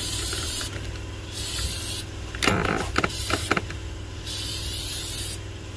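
Aerosol can of brake cleaner spraying in short hissing bursts, about four of them, each around a second long, into a tire's bead seat on the rim to flush out dirt.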